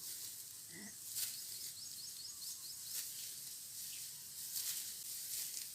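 Rice stalks being cut by hand with a harvesting knife, a few short crisp strokes about a second and a half apart, over a steady high insect hiss. A quick run of small bird chirps comes about two seconds in.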